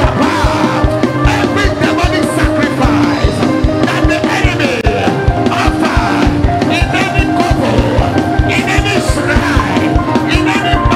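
Loud church praise music with a fast steady drum beat, with a crowd of voices praying and singing aloud over it.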